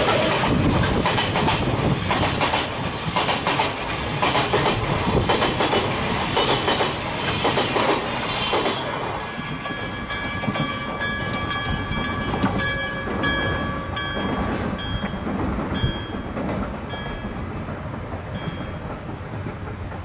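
A train rolls past with wheels clacking over the rail joints. As it draws away, the crossing's iron gong-type electric warning bell (a 1970 Kyosan unit) is heard striking about one and a half times a second, each stroke ringing on. The bell fades out near the end.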